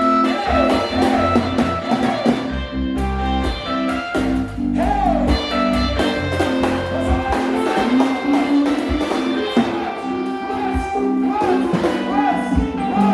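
Worship music led by guitar over held bass notes, with a steady beat.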